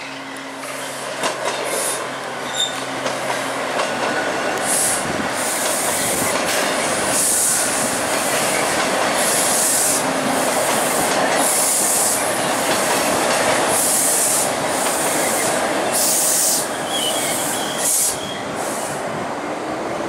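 A TTC T-1 subway train passing close by, growing louder over the first few seconds to a steady rush of steel wheels on rail, with a few light clicks at the start. High-pitched screeching from the wheels comes and goes through the pass.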